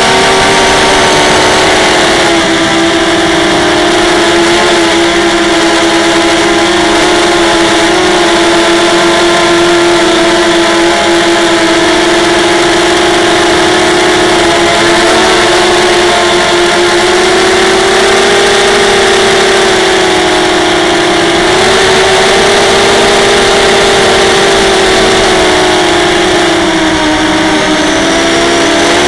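Brushless motors and propellers of a ZMR250 racing quadcopter, heard from its onboard camera: a loud, steady buzzing whine whose pitch wavers up and down as the throttle changes, dipping and rising again around two thirds of the way through and near the end.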